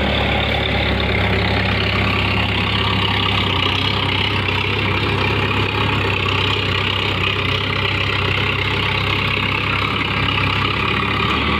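Diesel engine of a Kagumi tracked crawler dump carrier running steadily while the machine moves and tips its dump bed. It is being test-run after a new gearbox clutch disc was fitted, the old disc having worn out.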